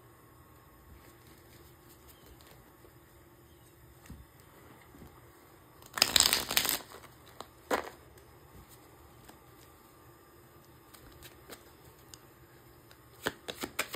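A deck of oracle cards being shuffled: one short, loud burst of shuffling about six seconds in, then a single click and, near the end, a run of light card clicks and taps, with quiet between.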